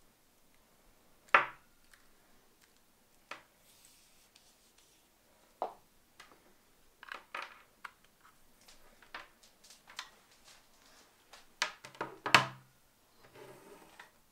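An electric scooter charger's plastic power brick and cord handled on a wooden tabletop: scattered clicks, knocks and rubbing. The loudest knock comes about a second in, and a quick cluster of knocks comes near the end.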